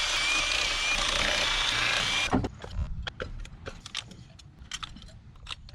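A cordless power drill or driver spins steadily with a thin whine and stops abruptly a little over two seconds in. After that come scattered light clicks and knocks of tools and parts being handled.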